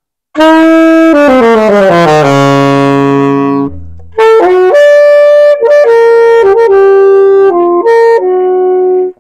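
Alto saxophone being play-tested after setup, checking that it plays cleanly from the top of its range to the bottom. A quick descending run ends on a held low note; after a short break, a brief phrase of separate notes follows in the middle register.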